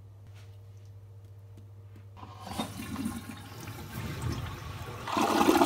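Toilet flushing: the rush of water starts about two seconds in and grows louder near the end. Before it, only a faint steady hum.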